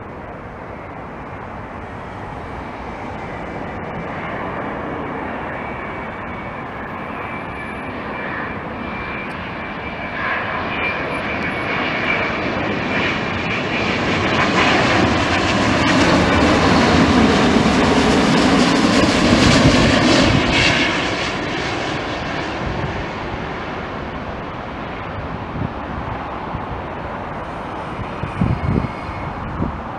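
Virgin Atlantic Boeing 787-9 Dreamliner on final approach with landing gear down, its Rolls-Royce Trent 1000 turbofans with a faint high whine, growing louder as it comes near and passes, loudest about two-thirds of the way through, then fading. A few short low bumps near the end.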